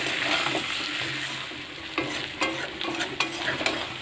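Chicken and potato pieces sizzling in oil and spice paste in a metal kadai while a metal spatula stirs them, scraping and knocking against the pan several times in the second half. The masala is being slow-fried (kosha) until the oil separates.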